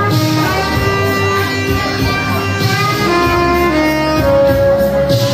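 Saxophone playing a slow, sustained melody of long held notes over a musical accompaniment, with one long note held near the end.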